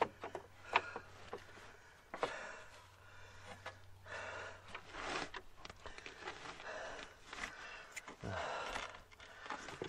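Faint, irregular clicks and scrapes of a wrench and hand tools against the van's underbody metal, with a few heavy breaths in between.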